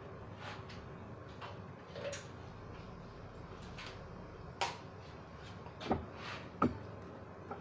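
Clicks and knocks of hair tools and bottles being handled on a wire salon trolley, over a low steady hum. Faint clicks in the first half and three sharper knocks in the second half.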